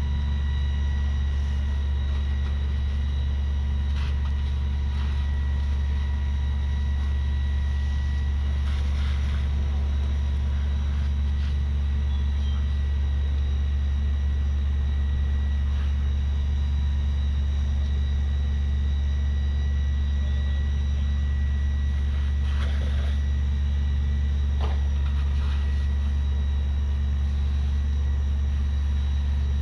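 Fire apparatus diesel engine running steadily at high idle to drive the fire pump feeding the hose lines and aerial ladder, a constant low drone with a faint steady whine above it.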